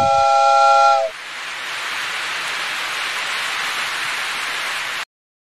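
Steady hiss of rain falling on a paved walkway and courtyard, opened by a held tone lasting about a second; the sound cuts off suddenly about five seconds in.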